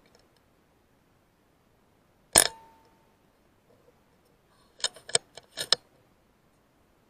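A single sub-12 ft-lb air rifle shot, a sharp crack with a short ringing tail, about two and a half seconds in. A quick cluster of four or five sharp clicks follows about two and a half seconds later.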